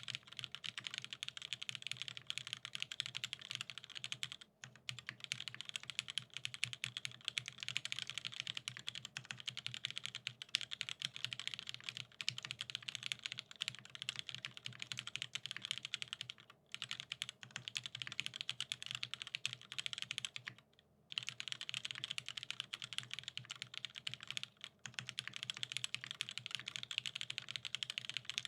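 Rapid, continuous clicking, many clicks a second, broken by a few short pauses, over a low steady hum.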